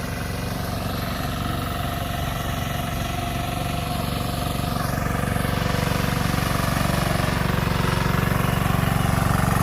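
Hand tractor (kuliglig) engine running steadily with an even, rapid chug. It grows louder toward the end.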